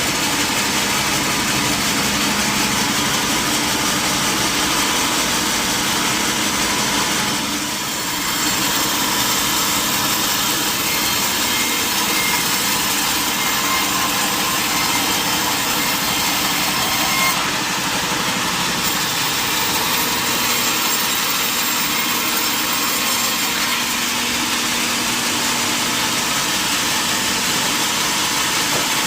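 Sawmill saw cutting through mahogany wood, running steadily, with a brief dip in level about eight seconds in.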